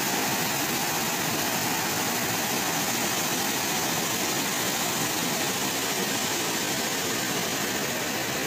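Floodwater pouring over a lake's masonry spillway and churning in the pool below: a steady, even rushing.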